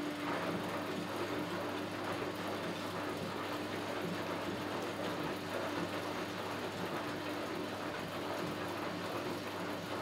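1964 Miele Automatic 416 washing machine tumbling its wash: the drum motor hums at one steady pitch under the swish and slosh of sudsy water and laundry, then stops at the end.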